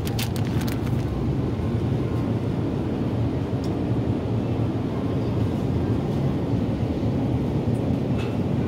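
Steady low rumble of supermarket background noise, with a plastic cheese package crinkling in hand during the first second.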